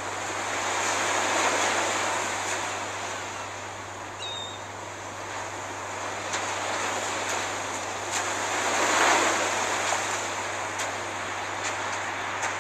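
Sea surf washing on a sandy beach, a steady rush of water that swells up about a second in and again more strongly around nine seconds.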